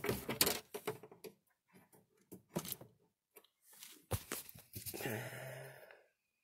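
Faint handling noises: scattered clicks and rustles as multimeter test leads and trailer-plug wiring are moved about, with a short breathy sound about five seconds in.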